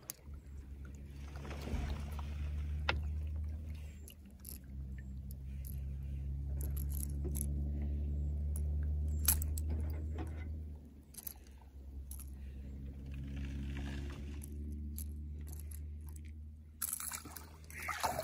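A motor's low, steady hum that builds, holds, then drops about ten seconds in and swells again more faintly before fading. Light clicks and jingles sound over it.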